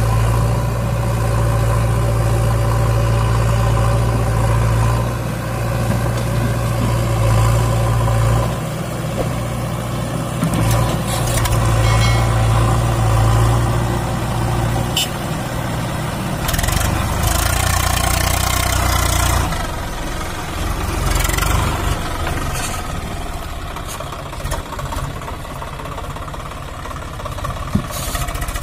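Diesel engines of a Swaraj 744 FE tractor, a three-cylinder 3136 cc diesel, and a JCB backhoe loader running at low revs close by. The engine note shifts several times, with a few short knocks.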